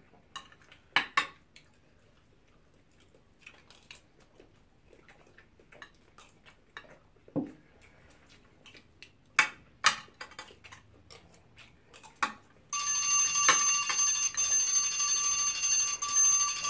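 Metal spoons clinking and scraping against a glass serving dish as people eat, then, about thirteen seconds in, a countdown timer's alarm rings out loud and steady when the timer reaches zero, until it is switched off.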